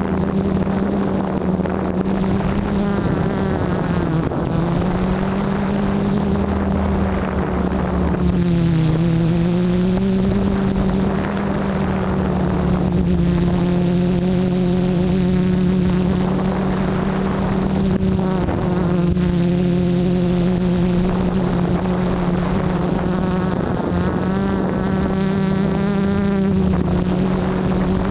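Electric motors and propellers of a Hobby King F330 quadcopter buzzing steadily, heard from its onboard camera. The pitch dips and rises a few times as it flies.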